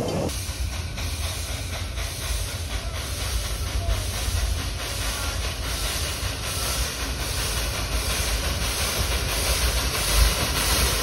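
1907 Baldwin steam locomotive approaching slowly, steam hissing from its open cylinder cocks over a regular chuff of exhaust. The hiss grows louder as it nears.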